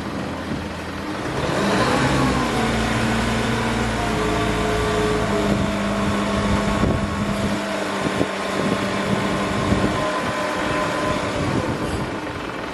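Mitsubishi Fuso Canter's 4P10 four-cylinder turbo diesel revs up about a second and a half in and holds a steady raised speed, then eases back down near the end.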